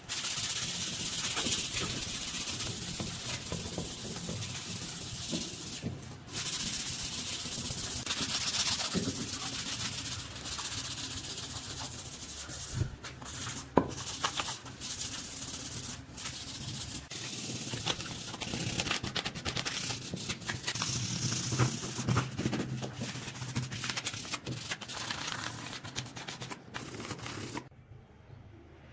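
Rusted metal parts being scrubbed with an abrasive: continuous rough scraping with many small clicks, which stops abruptly near the end.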